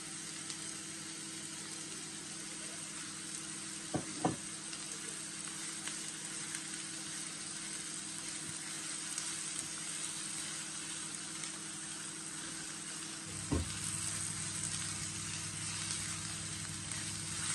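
Chicken mince and chopped onions sizzling in a hot non-stick frying pan while a silicone spatula stirs and breaks up the raw mince. Two short knocks stand out, about four seconds in and again about thirteen seconds in, over a steady low hum.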